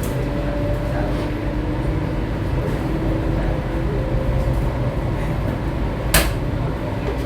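Steady low rumble of the Vande Bharat Express electric trainset running, heard from inside the coach, with a faint steady hum over it. One sharp click about six seconds in.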